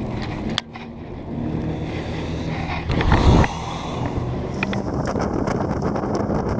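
A boat's outboard motor running steadily, with wind buffeting the microphone and a brief louder burst about three seconds in.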